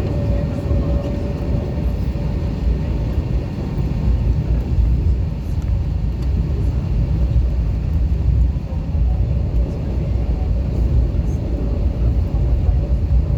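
Steady low rumble inside the cabin of an Airbus A321 on the ground, its engines and airframe running with no change in pitch.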